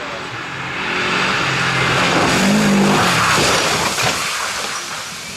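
Rally car at speed: the engine note runs under a loud rushing of tyres and road noise that swells to a peak about halfway, then fades. It breaks off abruptly near the end.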